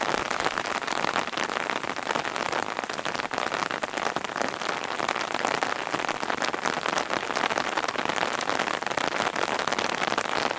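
Steady, dense patter and hiss of water, full of fine crackling ticks.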